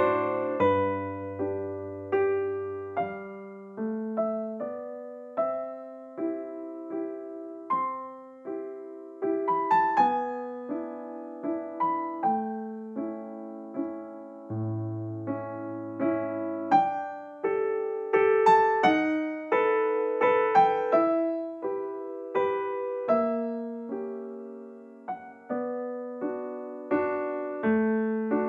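Instrumental piano music: a melody of struck notes that ring and fade, over a few long-held low bass notes.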